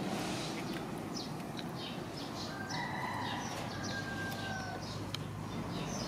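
A rooster crowing once, a long drawn-out crow starting a little before halfway and sagging slightly in pitch as it ends, with short high bird chirps around it.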